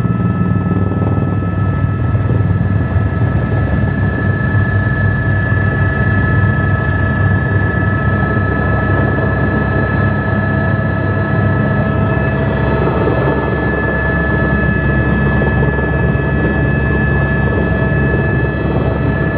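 Helicopter in flight: a steady turbine whine over heavy low rotor and engine noise.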